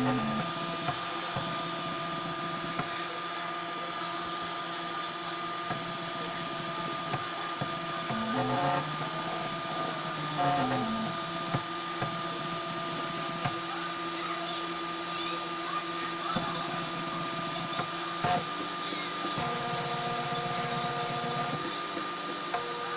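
Homemade 3D printer's stepper motors whining steadily as it prints, with rising and falling pitch glides a few times as the axes speed up and slow down, and a few sharp ticks.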